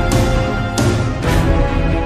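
Background theme music: sustained pitched chords with a regular beat of bright accents.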